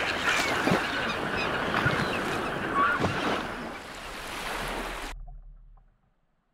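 A few short bird calls over a steady rushing wash of surf and wind noise, which fades out about five seconds in.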